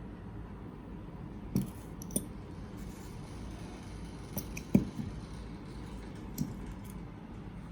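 Five short separate clicks and taps, unevenly spaced, the loudest a little past the middle, over a steady low hum.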